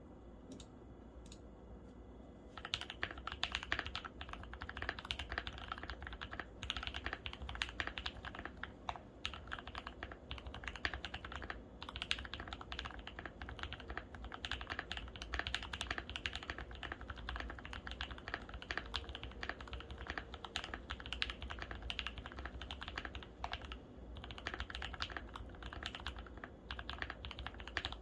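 Typing on a Tofu65, a 65% mechanical keyboard: a few single keystrokes, then steady, rapid typing from about two and a half seconds in.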